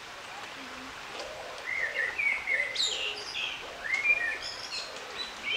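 A songbird singing: short whistled phrases of sliding notes begin about two seconds in, each followed by higher, thinner twittering notes.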